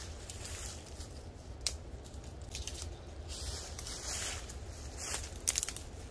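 Dry twigs and small branches snapping as they are broken off trees by hand, with dry leaves crunching. Several sharp cracks, the loudest about five and a half seconds in, over a steady low rumble.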